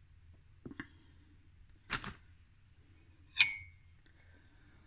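Metal spoon knocking against a glass jar while scooping a thick mixture: three clinks a little over a second apart, the last loudest with a short ring.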